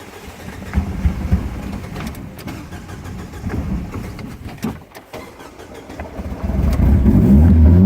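A car engine running with an uneven low rumble and scattered knocks; it grows much louder and steadier about six and a half seconds in.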